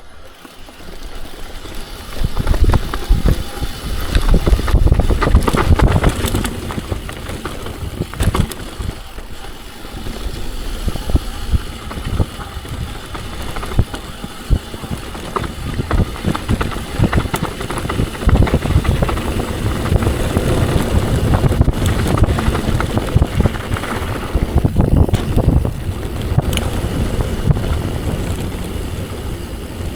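Mountain bike riding fast down a dirt downhill trail: wind rushing over the microphone, tyres on dirt, and the bike rattling with many sharp knocks over roots and bumps. The rush grows and falls as the speed changes.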